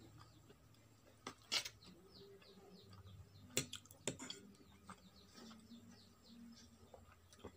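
A metal fork clinks against a ceramic plate a few times while noodles are picked up. Behind it a bird chirps in a quick run of short, falling chirps.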